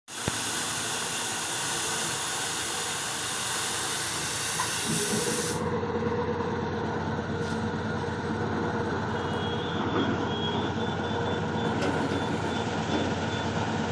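Loud hiss of compressed air, cutting off about five and a half seconds in. From about five seconds in, a steady machine hum carries on, plausibly the air compressor set running.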